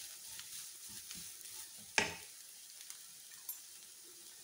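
Wooden spatula stirring and scraping grated coconut and chopped vegetables in a non-stick pan over a faint sizzle, with one sharp knock about two seconds in. After that the stirring stops and only the faint sizzle remains.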